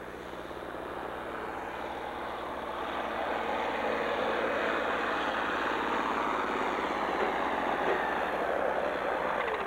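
A farm-stock pulling tractor's diesel engine working flat out under heavy load while it drags a weight-transfer sled. It grows louder over the first few seconds, then holds steady.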